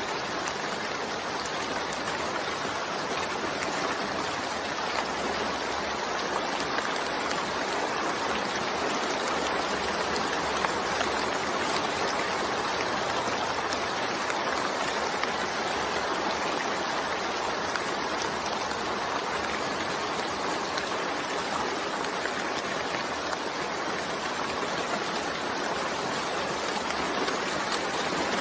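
Steady, continuous rainfall: an even wash of falling water that holds the same level throughout, with no distinct drops or breaks standing out.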